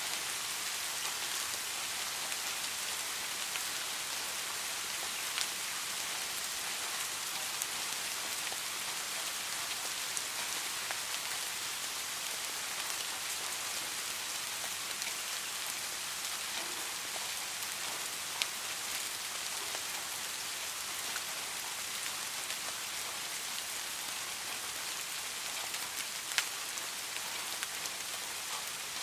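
Steady rain falling, an even hiss with a few single drop impacts standing out now and then.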